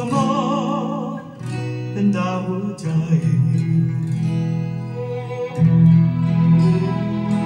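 Music played from a vinyl record through a Denon DL-103R moving-coil cartridge: an instrumental passage of picked guitar notes over bass. It opens on a held wavering note that fades in the first second.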